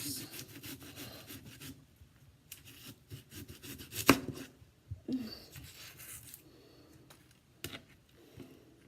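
Kitchen knife cutting an onion on a cutting board: a quick run of cuts, one sharp knock on the board about four seconds in, another run of cuts, then a few faint taps.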